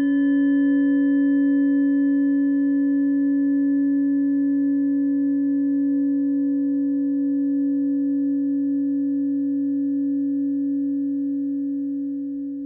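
A held harmony of steady electronic pure tones, one strong low tone with several fainter higher tones above it, beginning to fade out near the end.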